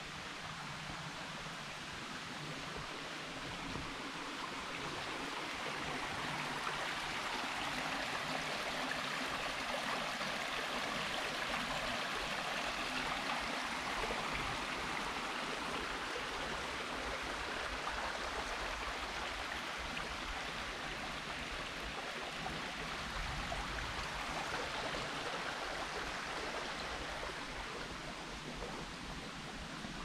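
Running water of a small forest stream, a steady rushing that grows louder toward the middle and fades somewhat near the end.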